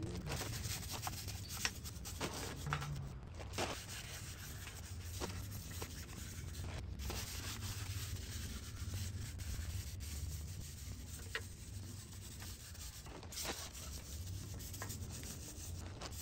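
A stiff-bristled brush scrubbing foam cleaner over a Porsche Boxster 986 aluminum engine block: continuous rough rubbing with a few light knocks.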